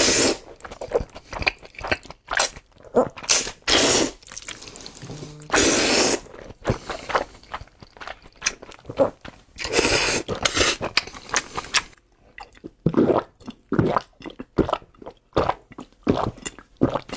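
Close-miked noodle slurping and wet chewing: several long slurps of thick sauced noodles, broken by short smacking chews. Near the end comes a quick run of gulps from a drink bottle.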